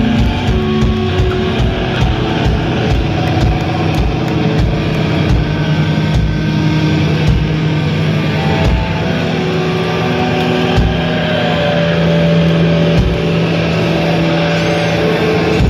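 Live sludge metal band playing: heavily distorted, down-tuned guitar and bass holding a loud, overdriven drone, with irregular heavy drum and bass hits through the first half.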